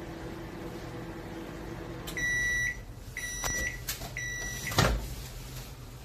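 Samsung MG23K3513AK grill microwave oven running with a steady hum that stops about two seconds in, followed by three beeps signalling the end of cooking. A few clicks follow, then a loud clunk near the end as the door is opened.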